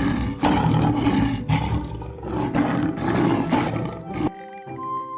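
A tiger roaring in several rough pulses, which cuts off suddenly about four seconds in. Soft background music with held notes follows.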